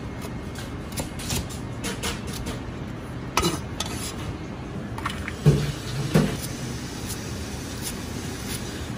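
Chinese cleaver chopping on a thick plastic chopping block, cutting ginger and then scallions: a run of irregular knocks. A few louder knocks and clatters come about three and a half and five and a half seconds in, over a steady low hum.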